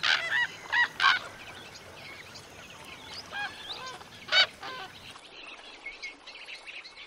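Brolga calling: a cluster of loud calls in the first second or so, then two more about three and a half and four and a half seconds in, over faint chirping of small birds.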